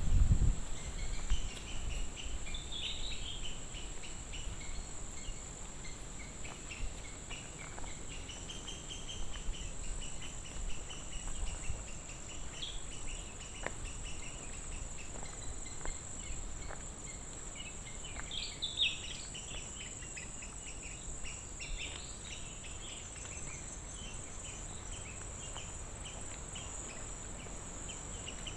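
Insects keep up a steady high-pitched drone while birds chirp on and off over it, most noticeably a few seconds in and again a little past halfway.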